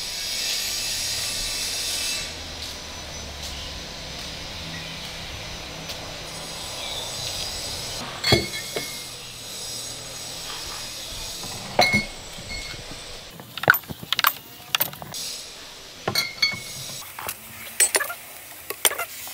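Glass beer and spirit bottles clinking against each other as they are set into wooden shelves. A few sharp clinks come about eight and twelve seconds in, then more come in quick succession toward the end.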